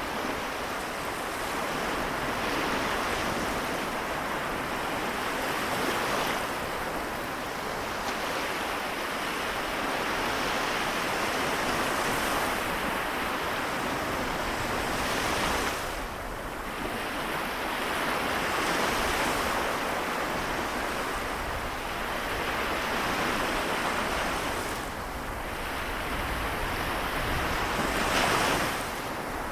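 Small waves of the Seto Inland Sea washing ashore and draining back, a steady hiss that swells and eases every few seconds, with a stronger surge near the end.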